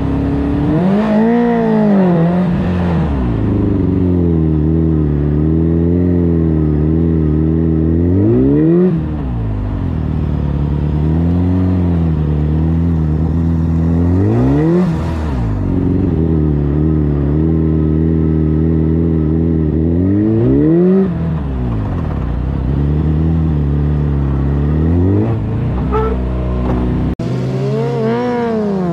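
Honda CBR600 F4i's inline-four engine pulling at low speed, its revs rising and falling in quick waves. Three sharp revs up and back down come about a third, half and two-thirds of the way through.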